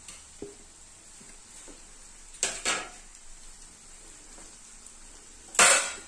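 Freshly added sliced onions sizzling softly in hot oil in a kadai, with two short clatters about two and a half seconds in. Near the end a loud clatter of a metal spoon against the pan begins as the onions are stirred.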